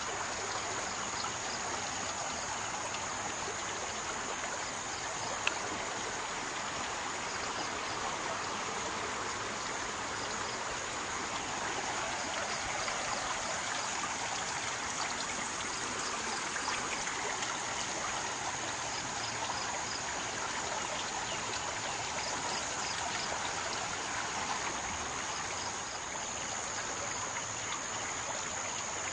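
Swollen river in flood, its fast brown water rushing past in a steady, even wash of water noise. A single sharp click about five seconds in.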